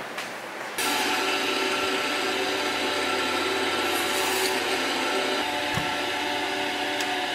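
Meat band saw running steadily, its blade cutting through beef rib bone; the sound starts suddenly about a second in.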